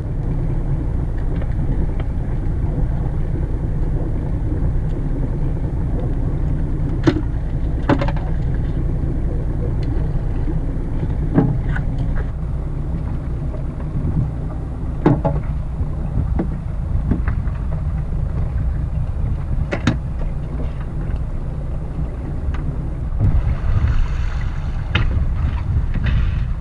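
A steady low rumble, with a few sharp knocks and clatters from a plastic stone crab trap and crab being handled on a boat deck, and a brief rushing noise near the end.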